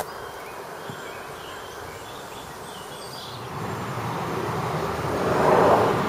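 Outdoor field-recording ambience: a steady, even rush with no clear pitch or rhythm. It swells from about halfway through to its loudest near the end.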